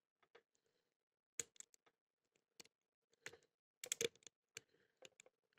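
Faint, scattered small metal clicks of a lock pick and tension wrench working the pin tumblers of a Blossom padlock, with a quick cluster of clicks about four seconds in.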